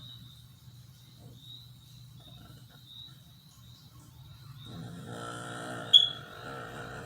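A sleeping person's drawn-out, moaning vocal sound lasting about two seconds, starting a little after four seconds in, over a steady low hum. A brief, sharp, high-pitched squeak about six seconds in is the loudest sound.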